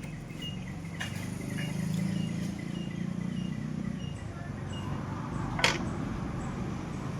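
Metal tool work on a motorcycle engine being turned by hand to top dead centre: a small click about a second in and one sharp metallic click a little past halfway, over a low steady rumble and repeated bird chirps.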